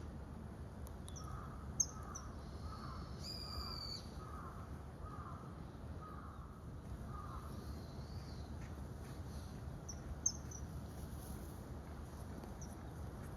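A crow cawing about eight times in a steady series, over a low steady background rumble. A few short, high-pitched bird chirps cut in, the sharpest about 2 seconds in and again near 10 seconds.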